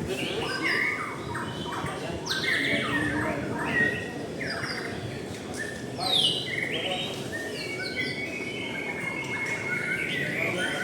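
White-rumped shama singing: a varied run of loud whistles, rising and falling sweeps and fast rattling phrases, with short pauses between phrases.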